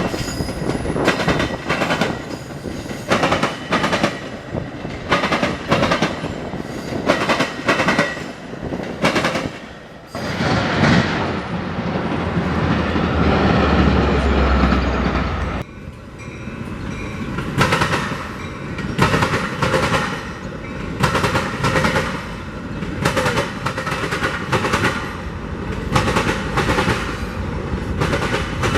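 Train passing close by, its wheels clicking over rail joints in regular pairs as each car goes past. In the middle comes a loud rumbling stretch of about five seconds that cuts off suddenly, after which the paired clicking resumes.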